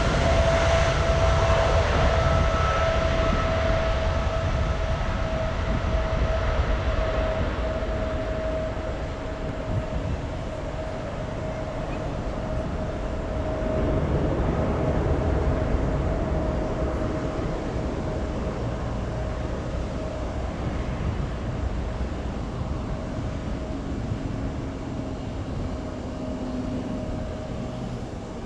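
Boeing 777-200ER's General Electric GE90 engines at takeoff power: a deep rumble with a steady droning tone that drifts slightly lower, slowly fading as the jet climbs away.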